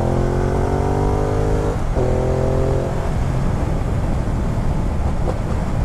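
2016 Ducati Multistrada 1200's 1198 cc Testastretta L-twin accelerating hard under the rider. Its note rises, breaks briefly for an upshift about two seconds in, and rises again. After about three seconds the engine note gives way to a steady rush of wind.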